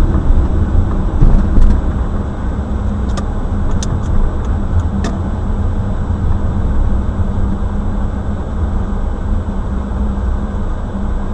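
Steady low rumble of a car's engine and tyres on a wet, slushy road, heard from inside the car, with a few faint short clicks in the first five seconds.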